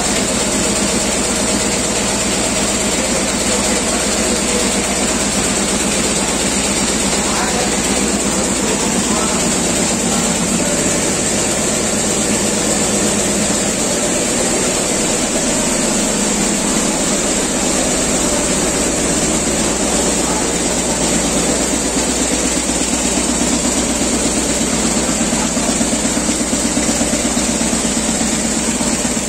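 Row of Richpeace multi-needle shuttle quilting machines running, a loud, steady, rapid mechanical clatter of the needle bars stitching.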